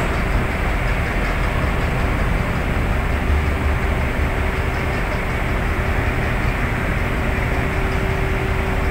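Ship engine machinery running steadily: a low rumble with a constant hum above it and a broad hiss.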